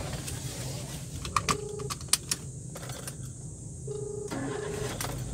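Mobile phone being tapped to place a call, with several sharp clicks, then short beeps and a double ring tone of the outgoing call about four seconds in. A steady low hum of the idling car runs underneath.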